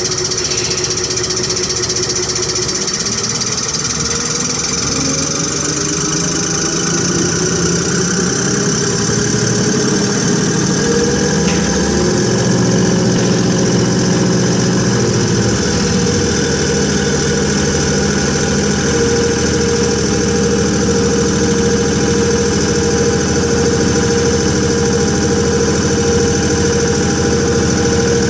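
Common-rail diesel pump test bench running a Bosch CP3 high-pressure fuel pump: a steady mechanical whine and hum whose pitch glides and steps to new levels several times as the bench speed is changed, a little louder from about nine seconds in.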